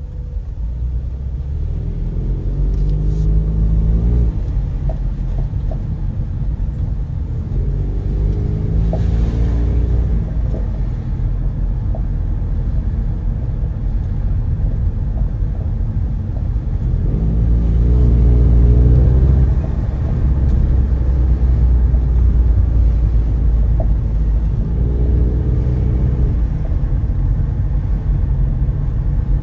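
Ford Mustang S550 driving: a steady low engine and road rumble, with the engine note rising four times as the car accelerates. Faint short clunks now and then, which the owner puts down to the BC Racing coilovers.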